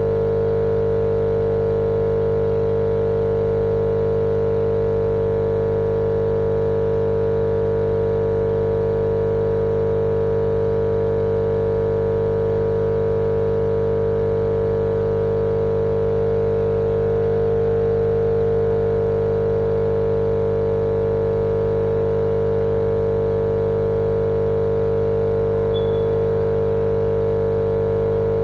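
Steady, unchanging drone of an electric appliance motor: a strong hum over a continuous hiss, used as white noise to lull a baby to sleep.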